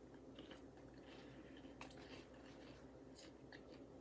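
Faint chewing of a mouthful of salad with bacon bits, heard as a few soft, scattered crunchy clicks over low room hum.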